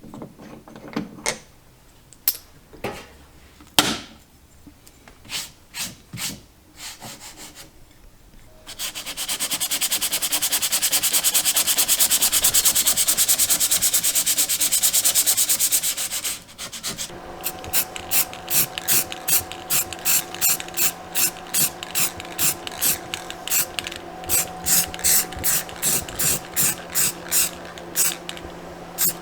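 Hand-tool work on the Jeep's metal door hinge hardware: scattered clinks at first, then several seconds of loud, fast, dense clicking, then steady back-and-forth strokes about three a second.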